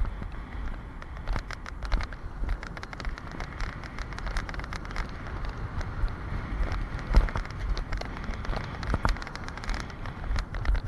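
Alpine coaster sled running down its steel tube track: a steady low rumble from the wheels on the rails, with many quick clicks and rattles.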